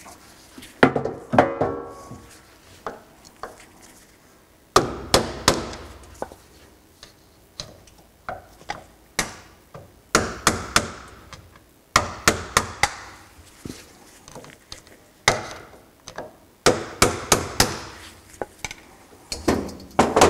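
Sharp chisel tapped around the edge of a Fox EVOL shock reservoir's charge cap to pop it up: a series of sharp metal taps in clusters of two to five, some ringing briefly.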